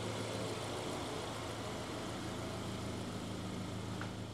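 Subaru Crosstrek Wilderness's flat-four engine running at low speed as the car creeps forward, a steady low hum.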